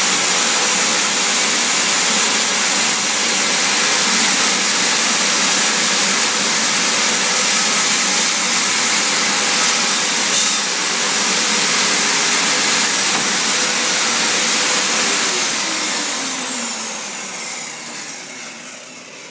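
Electric power saw running steadily at full speed on hardwood flooring, then switched off about fifteen seconds in, its motor pitch falling as it winds down.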